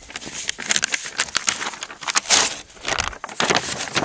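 Paper target rustling and crinkling in a run of irregular crackles as a CD is pulled off it by hand, close to the microphone.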